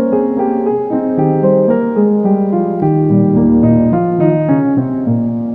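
Background piano music: a slow melody of held notes changing about every half second.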